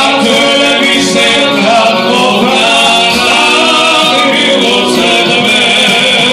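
Two men singing live into microphones through a PA, several voice lines at once, over keyboard accompaniment; loud and continuous.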